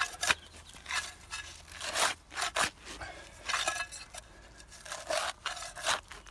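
Turfing iron cutting through grass turf: a run of irregular scraping, tearing strokes as the blade slices through the turf and its roots.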